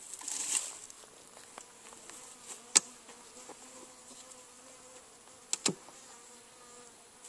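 Honeybees buzzing around an opened hive, a faint steady hum. A sharp click comes nearly three seconds in, and two wooden knocks come near the end as a metal hive tool pries apart the hive boxes.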